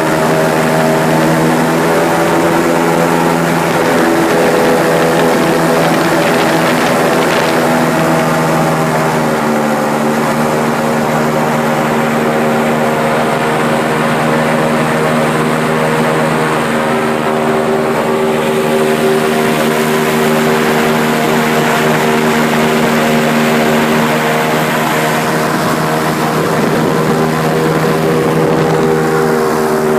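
Airboat engine and aircraft-style propeller running at speed: a loud, steady drone whose pitch settles a little lower about ten seconds in.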